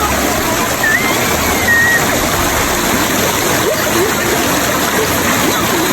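Waterfall rushing: a loud, steady roar of falling water, with faint voices under it.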